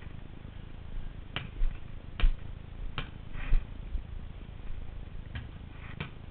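A basketball bouncing on paving stones: a series of short knocks roughly a second apart, over a low rumble.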